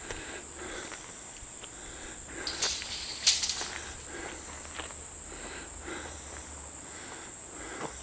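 Steady high-pitched insect drone over an outdoor yard, with scattered light footsteps on dirt and two louder scuffs about two and a half and three and a quarter seconds in.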